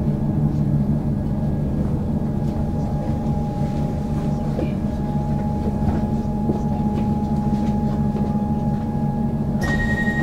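Inside a Comeng electric suburban train carriage as it draws to a stop at a platform: a steady low rumble and hum of the train, with a faint steady whine through the middle. Near the end a higher steady tone comes in.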